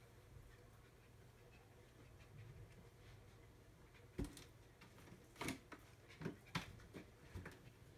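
Dog searching a quiet room on leash: a low thump about four seconds in, then a handful of short sniffs and light knocks over the next three seconds, with near silence around them.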